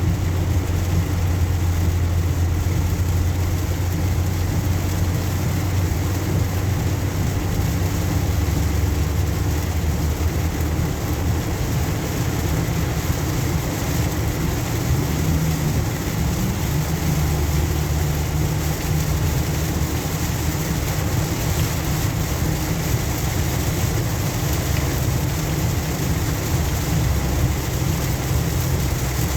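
Inside a moving car on rain-soaked roads: a steady low engine and road hum over an even hiss of tyres on wet pavement and rain. The hum's pitch rises briefly about halfway through.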